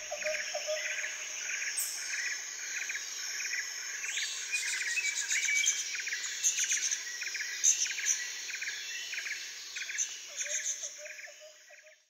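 Nature ambience of many birds chirping over a steady high insect buzz, with short chirps repeating about twice a second and a run of lower quick notes at the start and again near the end. It fades out at the very end.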